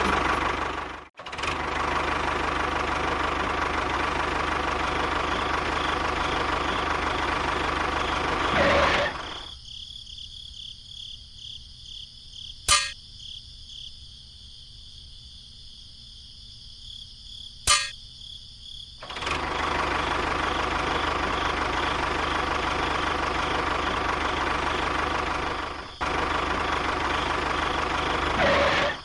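An engine running steadily, with a short break about a second in. It is then replaced for about ten seconds by quiet insect chirping with two sharp clicks, and after that the engine running resumes.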